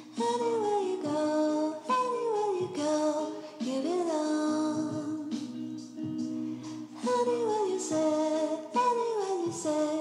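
Background music that starts suddenly: a song with singing, its melody sliding down in pitch again and again.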